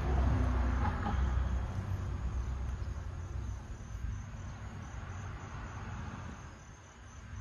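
A passing car's low rumble fading away over the first few seconds, with insects such as crickets chirping steadily in the background.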